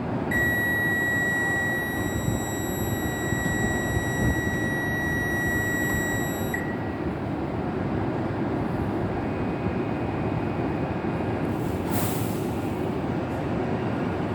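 A steady high electronic warning tone sounds for about six seconds as the Shinkansen's doors close, over the continuous rumble of the train at the platform. A brief hiss comes about twelve seconds in.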